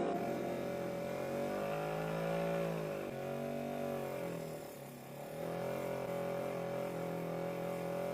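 A small motor running steadily. Its pitch sags and comes back up a couple of times, as if briefly loaded.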